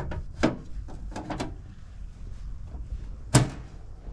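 Sheet-metal cover of a meter main enclosure clanking and clicking as it is handled and fitted: a handful of sharp knocks, the loudest about three and a half seconds in.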